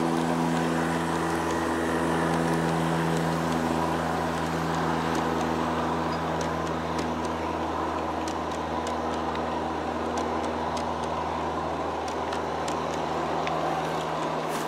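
G-scale model diesel locomotives passing with a steady hum that fades after about four seconds. A long train of model freight cars then rolls by on the track, with a steady rumble and scattered light clicks.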